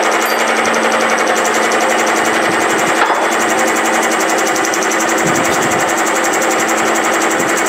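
Milling machine running an end mill through a keyway cut in a small-engine steel crankshaft under power table feed. The motor hums steadily while the cutter gives a fast, even rattle.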